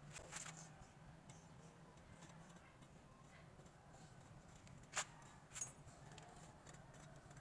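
Faint, sparse clicks and light metallic clinks from hands handling the brake caliper's bleeder screw and hose fitting, over a low steady hum. The two sharpest clicks come about five seconds in, the second with a short ring.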